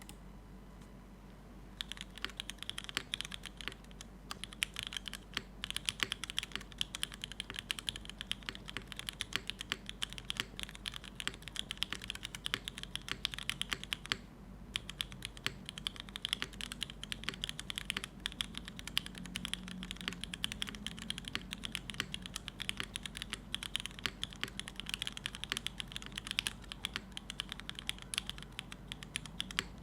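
Fast continuous typing on a Neo75 CU mechanical keyboard with unlubed Cherry MX2A Black linear switches, gasket-mounted on a carbon fiber plate with no foam, under GMK keycaps. The keystrokes begin about two seconds in and stop briefly about halfway through.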